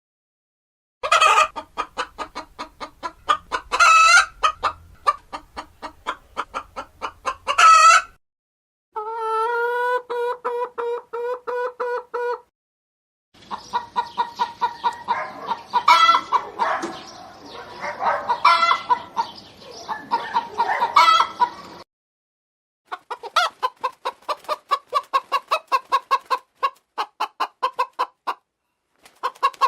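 Hen clucking in rapid runs of short notes, broken now and then by a few louder, drawn-out calls, in several stretches cut apart by brief gaps of silence.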